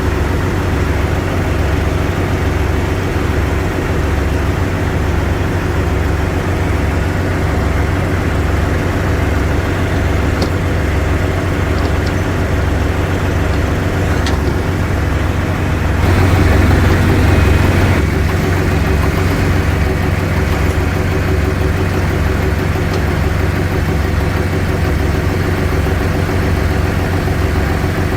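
An engine idling steadily with an even low pulse, running louder for about two seconds around sixteen seconds in.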